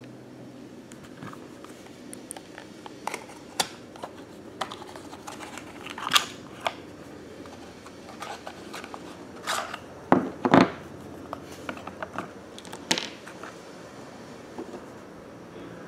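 Small cardboard box handled and opened by hand: scattered scrapes, taps and rustles of the flaps, with a louder cluster of scraping about ten seconds in.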